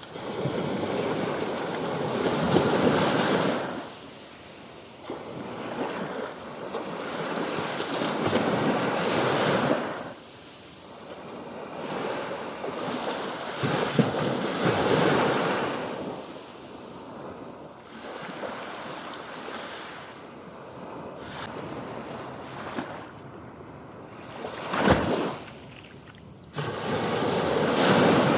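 Sea waves breaking and washing up on the shore, rising and falling in surges every several seconds. A single sharp thump stands out near the end.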